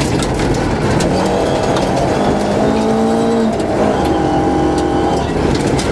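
Rally car engine heard from inside the cabin, driven hard at high revs, its note holding and then stepping to a new pitch about halfway through as it goes through the gears, over constant road and tyre noise with scattered sharp clicks.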